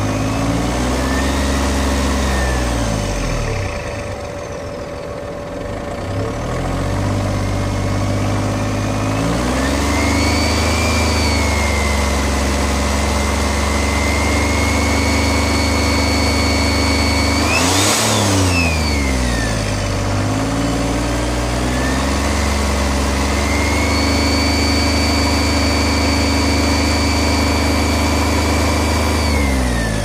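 2006 Smart fortwo's 0.8-litre three-cylinder turbodiesel being revved. It twice climbs to raised revs and holds there for several seconds, dropping back toward idle in between. A high, steady turbo whistle rises and falls with the revs, and there is a short burst of noise as the revs drop about two-thirds of the way through.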